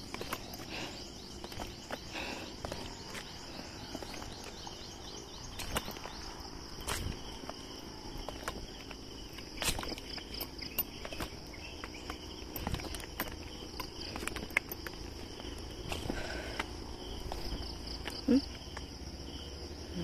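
Steady high-pitched insect chirring, with scattered footsteps on stone or concrete steps and one brief louder sound near the end.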